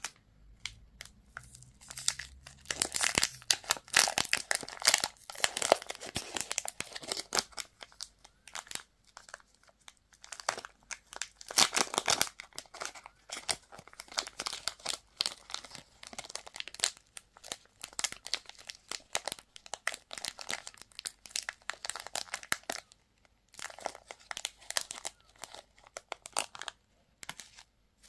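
Candy wrappers crinkling and tearing as they are unwrapped by hand: a dense, irregular run of crackles with a few short pauses.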